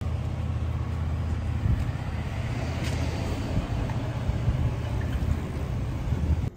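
Steady low rumble of outdoor street noise picked up by a handheld phone microphone, without speech.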